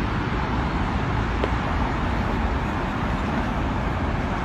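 Steady road traffic noise from cars on the adjacent street, an even rumble with no distinct passes.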